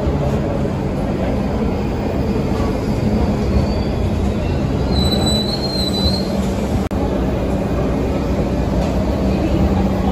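R62 subway train running into the station and slowing, a steady heavy rumble of wheels and motors with a brief high wheel-and-brake squeal about halfway through.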